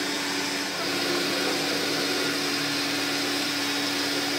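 Metal lathe running with a twist drill boring into the spinning workpiece: a steady machine whir and hiss with one constant tone through it.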